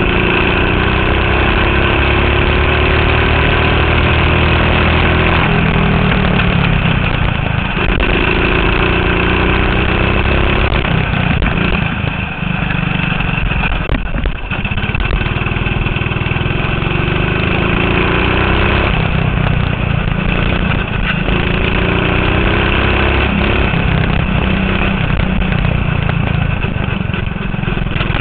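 Go-kart engine running hard, heard onboard. Its pitch climbs several times as the kart accelerates and falls back in between as it slows for the corners.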